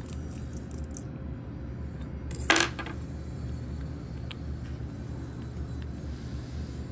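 A small metal part clinks onto a hard surface once, with a brief rattle and ring, about two and a half seconds in, over a steady low hum.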